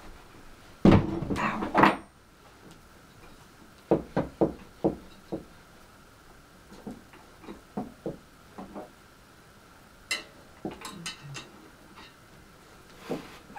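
Knocks and clatter of Stihl mini cultivator parts being handled and fitted together by hand: a loud burst of rattling about a second in, then groups of short sharp knocks around four and ten seconds in.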